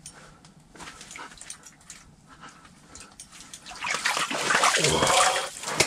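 Light clicking from the fishing line and reel as a fish is drawn up, then from about four seconds loud splashing and sloshing as a burbot thrashes its way up through the water in the ice hole.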